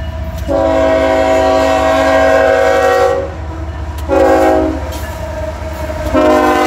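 CSX freight locomotive's multi-chime air horn sounding the grade-crossing signal: a long blast, a short one, then the start of another long one, with the diesel locomotives rumbling steadily underneath as the train approaches and passes the crossing.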